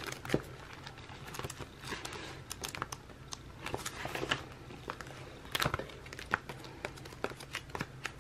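Paper and plastic crinkling and rustling with scattered light clicks and taps, as sticker sheets and planner supplies are handled and peeled, over a faint steady low hum.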